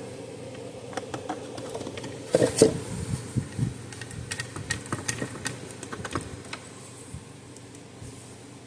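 Irregular small clicks and taps of plastic and metal parts being handled while a wire connector is worked onto an electric fence charger's circuit board. The loudest is a short cluster of knocks about two and a half seconds in, and a faint steady hum runs underneath.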